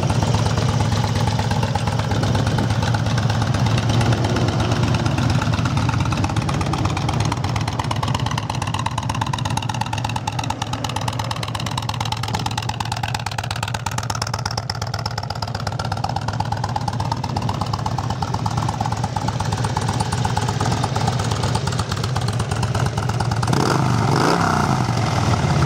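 2002 Harley-Davidson Ultra Classic's fuel-injected Twin Cam 88 V-twin idling steadily through a Screaming Eagle 2-into-1 Pro Pipe exhaust, then revved up briefly near the end. It revs up clean, with no strange noises.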